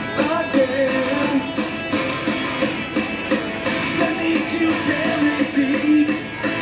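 Rock music with guitar, playing steadily.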